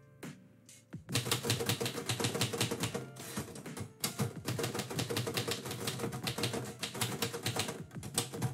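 Manual typewriter being typed on fast, a steady clatter of keystrokes that starts about a second in, with a couple of brief pauses.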